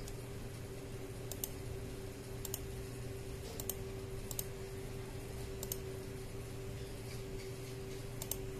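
Sparse clicks of a computer mouse and keyboard during computer drafting: about six short, sharp clicks, each a quick double, a second or so apart, over a steady low electrical hum.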